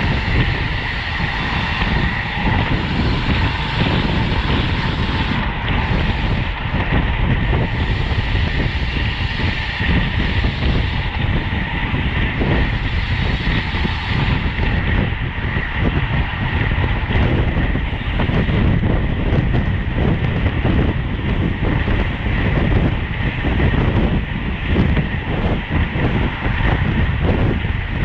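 Steady rushing and rumbling of wind and road noise on a rider's camera at racing speed, with no let-up.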